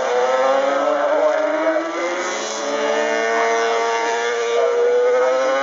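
Several two-stroke Yamaha TZ racing motorcycles running at high revs on track, their engine notes overlapping. The sound dips about two seconds in, then the main note climbs steadily as the bikes build speed again.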